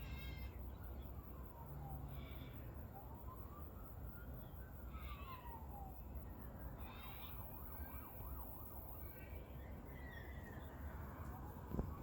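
Distant emergency vehicle siren wailing in slow rising and falling sweeps, switching briefly to a faster yelp around the middle. Short bird calls come in on and off over a steady low traffic rumble.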